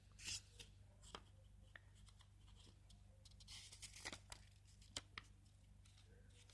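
Faint rustling of paper with small clicks and taps as printed documentation booklets from a phone box are handled and leafed through, over a low steady electrical hum.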